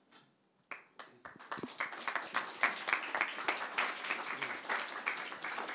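Audience applauding. The clapping starts about a second in, swells, and dies away near the end.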